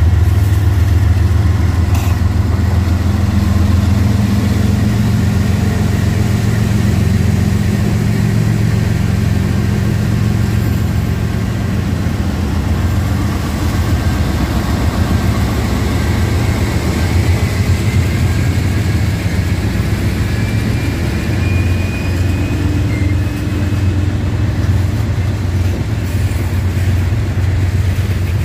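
Union Pacific freight train passing close by: the diesel locomotives run past with a heavy, steady rumble, the last unit going by about halfway through. The coal hopper cars behind it then roll past on the rails.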